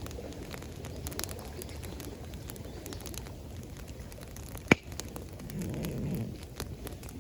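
Campfire crackling, with many small pops and one sharp loud pop about two-thirds of the way through, over a steady low rush of water.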